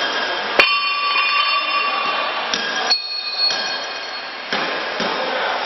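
Steel parts of a manual brick-making machine knocked together while its mould is being changed. A sharp metallic clank about half a second in rings on for about two seconds, a second, higher ring follows about three seconds in, and there are a couple of lighter knocks near the end.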